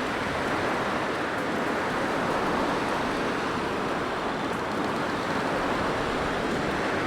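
Blizzard wind blowing steadily, a dense rushing noise that swells and eases slightly.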